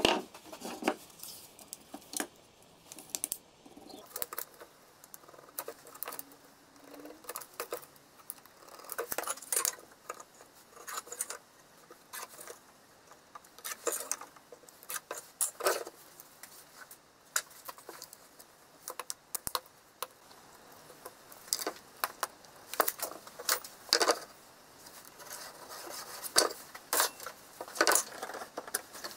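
Scattered taps, knocks and clicks of a wooden plank, a tape measure and marking tools being set down and handled on a wooden workbench. Near the end, the clicks of a sliding mitre saw being handled while it is switched off.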